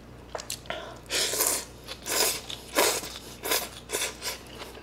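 Rice noodles of Vietnamese pho slurped up from a bowl of broth, in a series of about five short slurps starting about a second in, with a few small mouth clicks between them.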